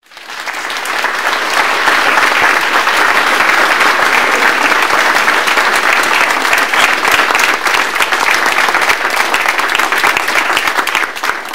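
A roomful of seated people applauding, a dense steady clapping that swells in quickly at the start and dies away at the end.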